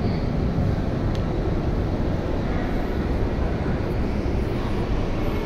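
Steady low rumble inside a CRRC metro train car standing at the platform with its doors open, with a faint click about a second in.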